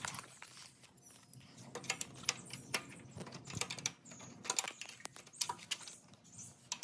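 Small irregular metal clicks and clinks, several a second, as an adjustable wrench is fitted to and turned on a nut of a mini bike's chain adjuster.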